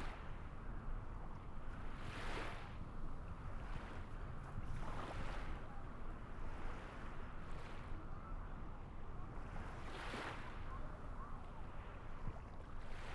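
Water washing in waves over a steady low rumble, a swell of wash about every two and a half seconds.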